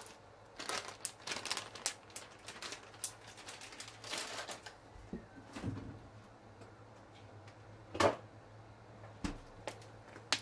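Off-screen kitchen handling noises: a quick run of light clicks and crinkly rustles, then a single louder knock and a few softer taps near the end, over a steady low hum.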